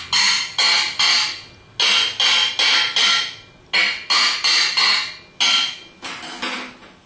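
Ball peen hammer tapping around the case of a Valeo alternator, about three quick blows a second, each with a short metallic ring, to break the two case halves apart.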